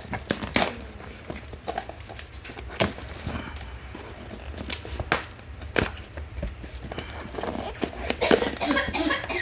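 A comic shipping package being opened by hand: irregular sharp clicks, rustling and crackling of cardboard, tape and plastic being torn and handled, busiest near the end.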